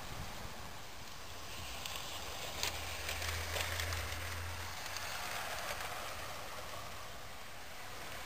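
Three-car G-gauge model trolley running along garden railway track. A low hum and a few sharp clicks are loudest as it passes close, around three to four seconds in, over a steady outdoor hiss.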